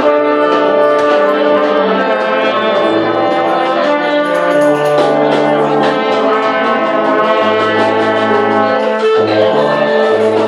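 Brass street band playing a tune together in rehearsal: several horns holding and moving through notes over a low bass line that steps from note to note every second or so.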